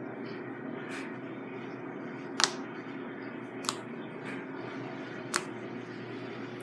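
Four short, sharp clicks, spaced about a second or more apart, over a steady low hum; the second click is the loudest.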